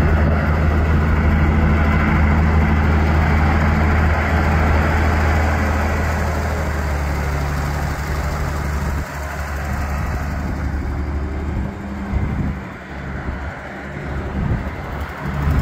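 John Deere 8400 tractor's six-cylinder turbo diesel engine running as the tractor drives past with a steady low hum. It is loud at first, drops off about nine seconds in as the tractor turns away, and grows louder again near the end.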